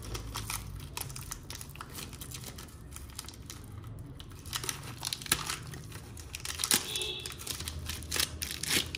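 Crinkling, tearing handling noise with scattered sharp clicks and knocks as a motorcycle part is worked loose by hand and checked for tape or screws behind it.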